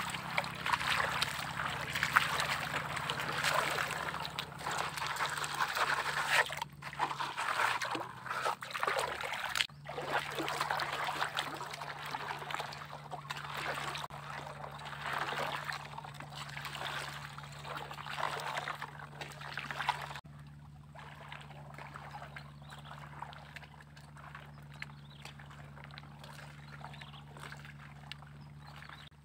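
Water sloshing and trickling in a plastic gold pan as it is swirled and dipped in a shallow stream, washing sand away to leave the heavier gold-bearing material. About two-thirds of the way in it drops suddenly to a fainter trickle, with a steady low hum underneath.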